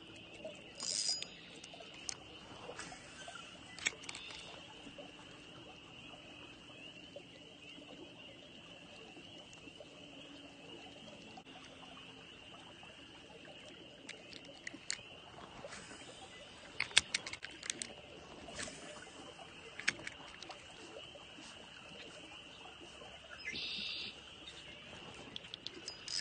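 Faint steady high-pitched chorus of small calling animals from the marsh, with scattered clicks and ticks from a spinning rod and reel being cast and retrieved.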